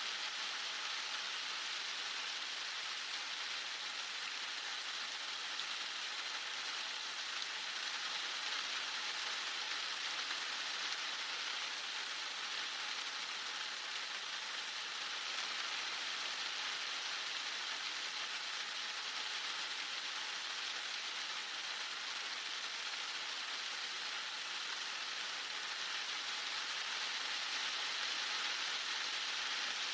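Heavy rain falling in a steady, even hiss with no breaks or separate drops standing out.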